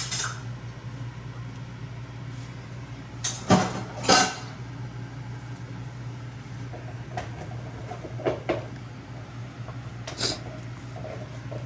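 Cookware clattering on a stovetop: two loud knocks about three and a half and four seconds in, then a few lighter clinks, over a steady low hum.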